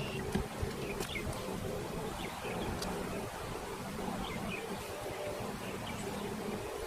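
Honey bees buzzing around their hive in a steady hum, with short bird chirps now and then.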